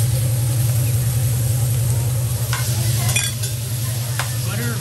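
Food sizzling on a hot teppanyaki griddle, with metal spatulas and a knife scraping and clicking against the steel surface a few times in the second half. A steady low hum runs underneath.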